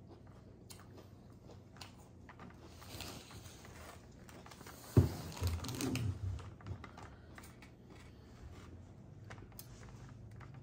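Eating at a table: scattered light clicks and taps of a plastic fork against a plastic salad container and plate, with one thump about halfway through.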